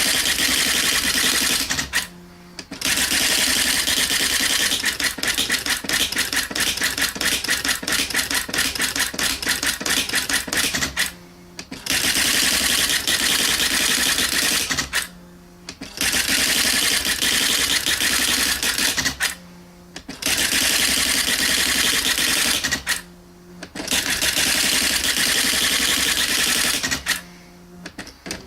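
Panasonic KX-R210 electronic daisy-wheel typewriter printing its built-in demonstration text on its own: very rapid strikes of the daisy wheel in long runs. Six brief pauses with a low hum break up the printing.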